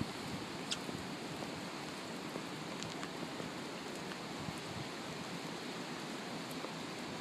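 Steady rush of hurricane rain and wind, with a few faint ticks of drops hitting something.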